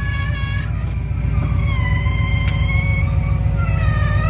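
An off-road wrecker's engine running steadily under long, high-pitched squeals from the tow sling rig as it is worked into place under the buggy. There are three squeals: one fading out early on, a longer one that slides down and then holds, and a rising one starting near the end.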